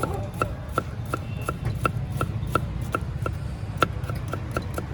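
Knife chopping on a board in steady, even strokes, about three a second, quickening slightly near the end with one louder stroke about four seconds in, over a steady low rumble.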